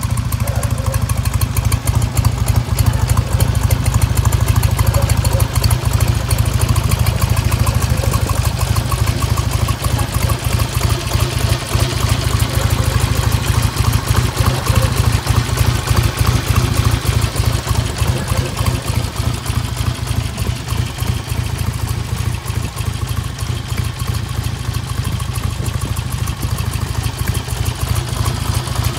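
1955 Ariel Cyclone's 650cc twin engine idling steadily, with an even, rapid beat of firing pulses.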